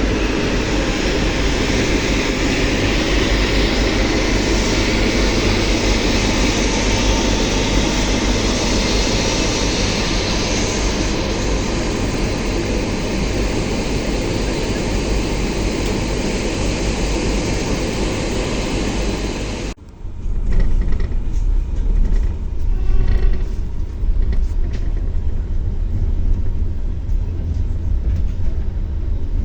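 Loud, steady noise of a passenger train hauled by a TEP70BS diesel locomotive. About two-thirds of the way in it cuts abruptly to a lower rumble with scattered knocks as the train pulls away.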